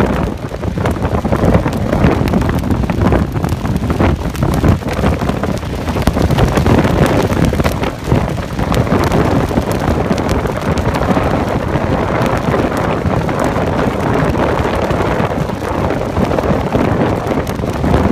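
Strong wind buffeting the microphone, loud and unsteady as it rises and falls in gusts.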